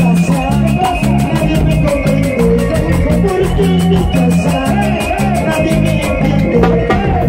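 Live band music with harp, bass and drum kit, held together by a fast, steady high percussion tick, while a man sings.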